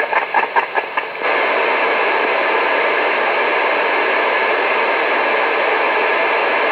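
Two-way radio receiver hiss on an open channel: about a second of choppy, broken-up signal bursts, then a steady, even static hiss as the signal drops off and nobody transmits.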